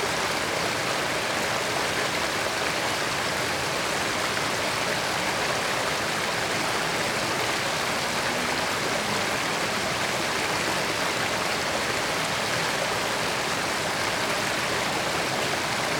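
Creek water flowing steadily over rocks, a constant rushing and babbling with no breaks.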